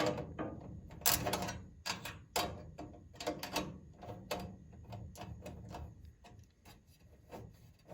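A run of irregular sharp clicks and knocks from parts of a furnace being handled, closely spaced at first and thinning out after about five seconds.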